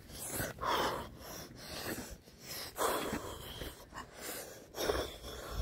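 A person breathing heavily close to the microphone: three loud breaths about two seconds apart.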